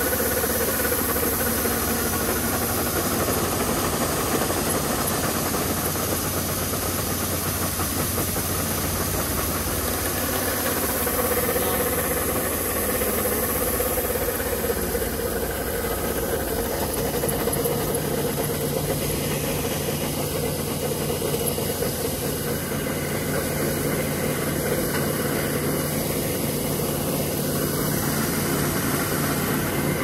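Kubota ER470 combine harvester's diesel engine running steadily while its unloading auger pours threshed rice grain into a bag, the falling grain giving a continuous hiss over the engine hum. A lower hum joins about halfway through.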